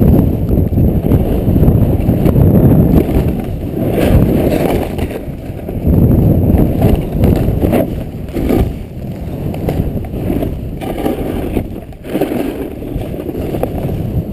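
Low wind rumble on the camera microphone, mixed with the rush of a snowboard riding through powder snow. It is loud and uneven, easing for a few seconds past the middle.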